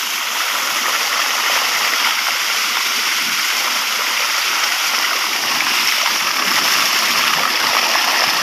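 Water gushing steadily from a large pipe outlet, pouring onto a bather beneath it and splashing into a shallow channel.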